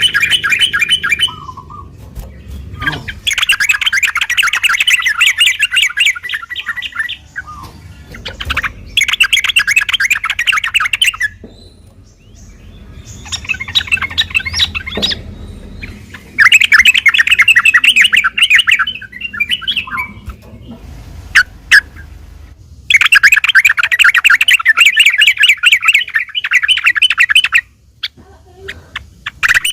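Yellow-vented bulbul (trucukan) singing in loud, fast chattering bouts of a few seconds each, about six bouts with short pauses between them.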